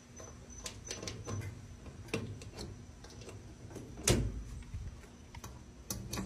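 A key being pushed into and twisted in the small metal locks of cluster mailbox doors, one lock after another: scattered metallic clicks and scrapes, the loudest, with a dull knock, about four seconds in.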